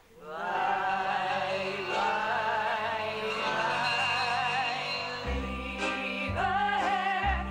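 Music for a dance number starts after a brief lull: a singing voice with a wide vibrato over accompaniment, with a heavy bass beat joining about five seconds in.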